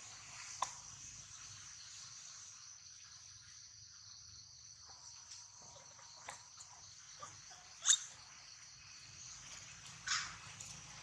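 Steady, high-pitched chorus of insects. It is broken by a few short, sharp sounds: the loudest about eight seconds in, and a slightly longer one near the end.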